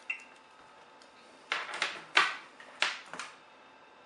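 Handling noise at a test bench as a multimeter is switched on and moved: a sharp click right at the start, then about five short knocks and rubs in quick succession.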